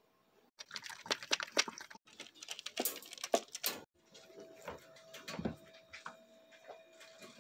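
Rapid clattering and clicking from handling a plastic slow-feeder bowl of dry dog kibble, then the lighter rattle of a metal wire dog crate door being opened.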